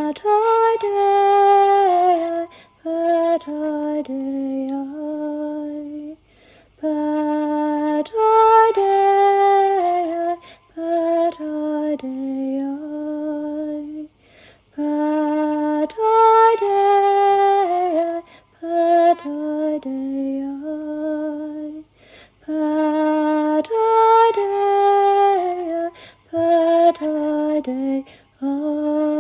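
A solo woman's voice singing a slow, wordless, chant-like melody without accompaniment, in phrases with short breaths between them, the same phrase coming back about every eight seconds.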